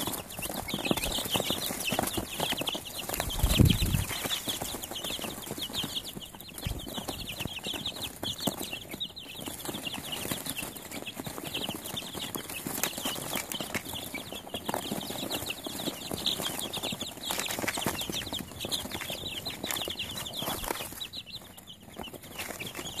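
A brood of young chicks peeping constantly, many short high chirps overlapping. There is one brief louder low thump about three and a half seconds in.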